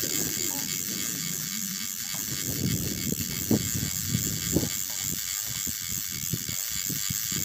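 Fishing reel being cranked to bring in a hooked fish, its gears giving a fast, irregular ticking rattle while the bent rod is under load.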